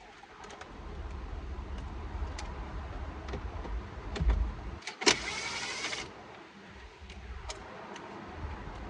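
Scattered clicks and light knocks of tools on dashboard plastic trim while Torx screws are being removed. About five seconds in comes one louder whirring burst lasting about a second.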